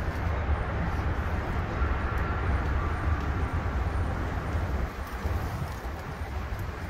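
Wind buffeting the microphone outdoors: a steady, gusting low rumble that eases slightly about five seconds in.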